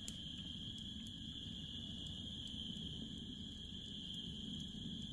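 Crickets trilling steadily, one continuous high-pitched note, over a faint low rumble.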